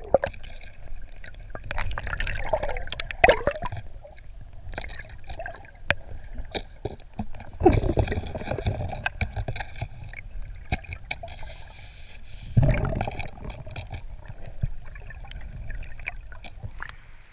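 River water heard underwater: a muffled low rumble of the current with scattered clicks and knocks among the rocks and gravel, and two louder rushing surges, about eight and thirteen seconds in.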